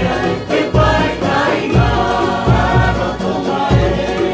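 Background music: a group of voices singing over a bass line with a beat.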